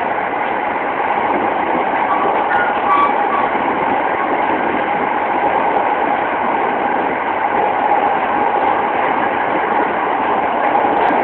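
Cabin running noise of a JR 209 series electric commuter train travelling at speed: a steady rumble of wheels on rail and the car in motion, with a few faint brief tones about two to three seconds in. Recorded on a mobile phone, so the sound is thin and lacks the highs.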